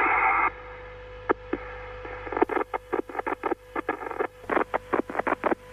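Radio static on the space shuttle air-to-ground communication loop as the downlink from Columbia breaks up and contact is lost. A short loud burst of static at the start, then a low hiss with a faint steady tone, then irregular clicks and crackles from about two and a half seconds in.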